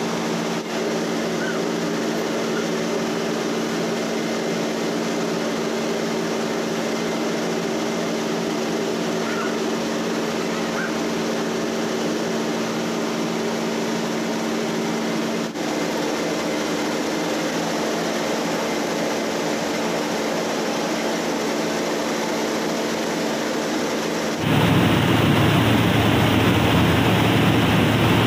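Mini rice mill running: a steady machine drone with a rushing noise, growing louder and fuller near the end.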